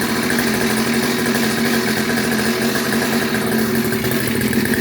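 Brand-new 50cc two-stroke engine in a Coolster mini machine idling steadily, freshly started and running with a steady buzzing drone.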